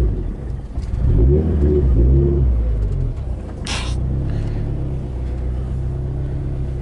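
Turbocharged Scion FR-S flat-four engine, heard from inside the car, rising and falling in revs a couple of times about a second in, then running at a steady speed. A short hiss sounds a little past halfway.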